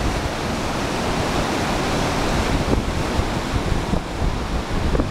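Floodwater in a river flowing fast, a steady rush, with wind buffeting the microphone.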